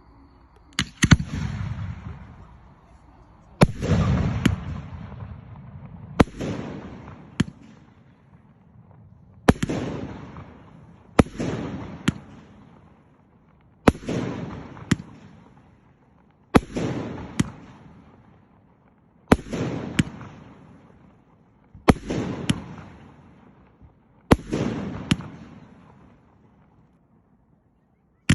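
Fireworks display: aerial shells bursting one after another, about every two to three seconds. Each burst is a sharp bang or two, followed by a rolling rumble that dies away.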